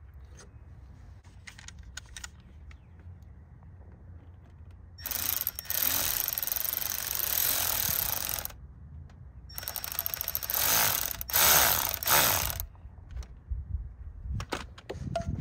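Milwaukee cordless ratchet running in two bursts of about three seconds each, a short pause between them, driving down a worm-drive hose clamp on the engine's intake air boot until it is tight.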